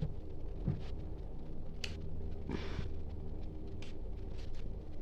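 Steady low hum with a few brief, faint clicks and a short rustle from handling craft materials: foam flowers being placed and glued onto a satin ribbon.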